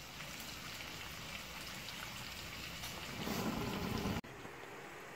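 Sliced ampalaya (bitter melon) sizzling in oil in a frying pan, a steady frying hiss. About three seconds in it turns louder and rougher for about a second, then cuts off abruptly and resumes a little quieter.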